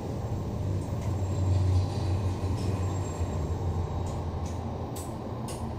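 Liftronic traction elevator car travelling upward: a steady low rumble and hum of the ride, easing off toward the end, with a few light clicks in the last couple of seconds.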